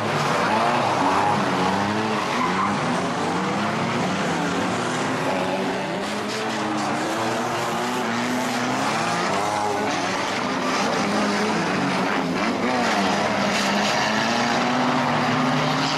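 Several banger racing cars' engines revving at once, their pitches rising and falling over one another, with tyres skidding.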